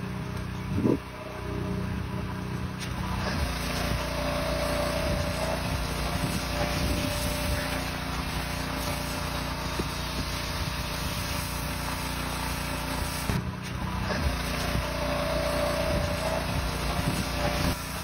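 Pressure washer running with a foam cannon spraying snow foam onto a truck cab: a steady motor drone under the hiss of the spray, with a brief break about two-thirds of the way through.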